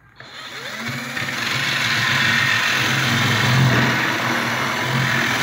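Cordless drill with a hinge-boring bit cutting the round cup hole for a concealed cabinet hinge into a wooden door: the motor starts and rises to a steady whir within about a second, with the bit grinding through the wood.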